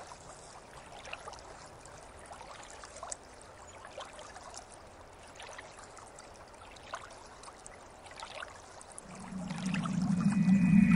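Backwater gently lapping and trickling at the bank, with small splashes and clicks. Over the last two seconds a low steady hum rises in.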